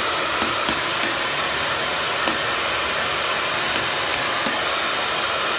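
Handheld hair dryer running steadily: an even, unchanging rush of blown air.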